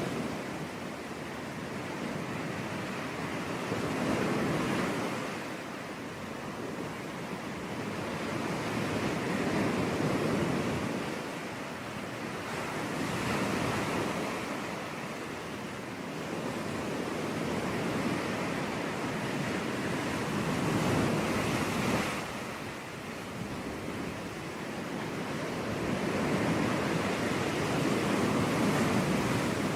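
Sea waves breaking and washing up a beach, the surf swelling and easing in slow surges every few seconds.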